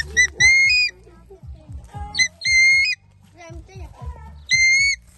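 An eagle calling: three shrill, whistled screams, each held about half a second and rising slightly at the end, with short notes before them, about every two seconds. Background music runs underneath.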